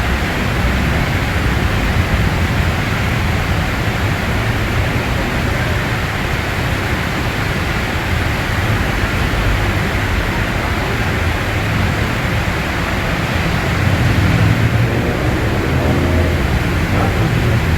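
Steady heavy rain hiss over the low rumble of road traffic below; near the end a vehicle's engine is heard speeding up.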